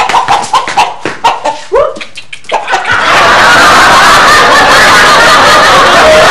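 A rooster squawking in short, separate calls as it is chased. About three seconds in, a loud, dense, continuous sound takes over.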